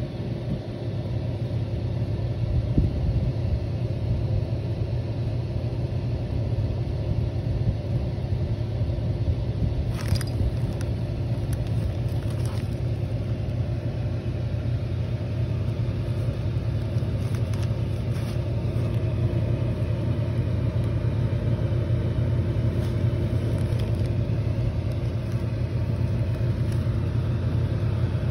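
Air cooler's fan running, a steady low rumbling hum, with a few faint ticks now and then.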